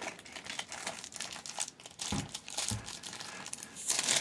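Plastic blind-bag toy wrapper crinkling as it is handled and torn open, with a louder rip near the end. A couple of soft low thumps come about two seconds in.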